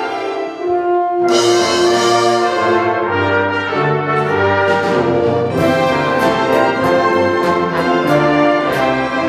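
Youth orchestra playing. A held string note gives way about a second in to a full entry led by the brass, and in the second half the ensemble plays sharp accents about twice a second.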